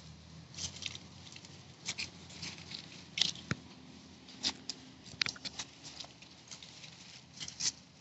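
Monkeys moving about and handling things: irregular light clicks, taps and rustles, a few a second and not evenly spaced.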